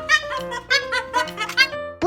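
Background music: a quick, bouncy tune of short plucked notes over a steady low bass.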